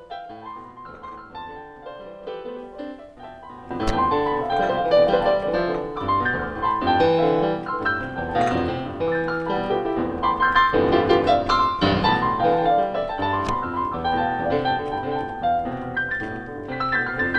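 Piano music, quiet for the first few seconds and then louder and fuller from about four seconds in.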